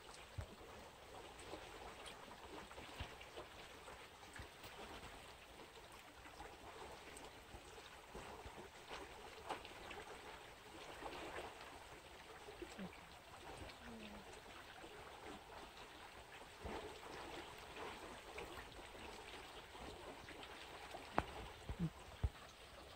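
Flowing canal water trickling and lapping against a rocky bank, with scattered small clicks and knocks and a few sharper clicks near the end.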